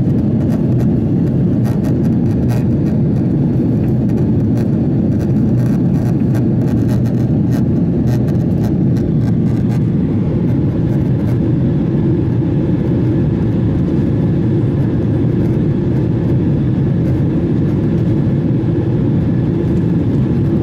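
Steady, low jet engine and airflow noise heard inside the cabin of a Boeing 767-400 during its departure, with faint light rattles in the first half.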